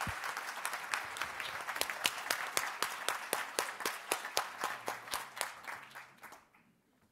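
Audience applauding as a speaker is given the floor, a dense patter of many hands with single claps standing out, thinning and dying away about six seconds in.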